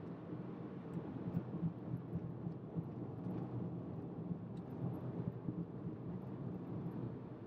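Steady low rumble of tyres and engine heard from inside a moving car's cabin, a little louder in the middle.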